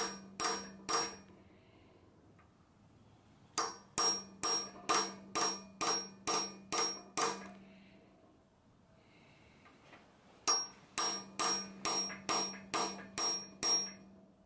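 Hammer striking a steel pin punch to drive the stock oil gallery orifice down into an RB26 engine block. The sound is three runs of quick, ringing metal taps, about two and a half a second, with short pauses between the runs.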